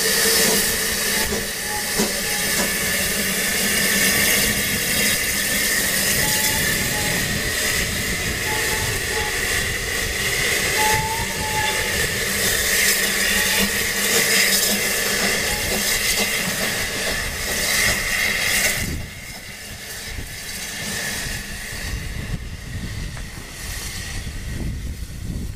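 Narrow-gauge steam tank locomotive No. 190 'Lyd' hissing steam steadily as it runs light over the rails. The hiss cuts off suddenly about 19 seconds in, leaving a quieter low rumble of the engine.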